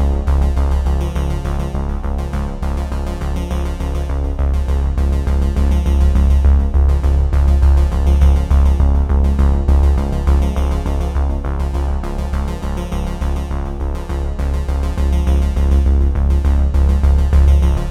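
Electronic background music with synthesizer and a heavy, steady bass beat.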